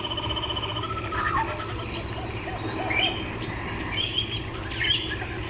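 A mix of birds chirping and calling, many short calls overlapping, over a low steady hum.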